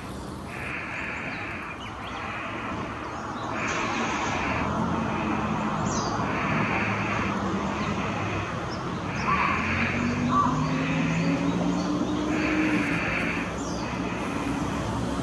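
Steady road-traffic rumble, with a vehicle's engine rising in pitch as it passes near the middle. Over it, a harsh hissing sound repeats in pairs of about a second each, roughly every three seconds.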